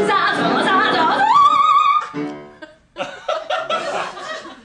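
A female soprano sings a coloratura run with piano, climbing to a high held note that ends about two seconds in. A piano chord rings out after it. The audience then laughs for about a second and a half.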